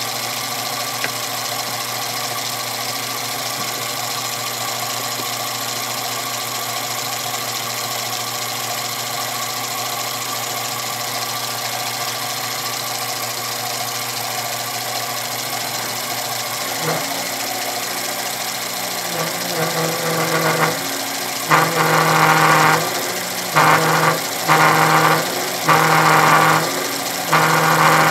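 Sherline benchtop mill's spindle motor running steadily, with a small end mill turning. In the last third, the cutter bites into the bearing box in five or six louder, harsher spells of about a second each, as the part is indexed into it.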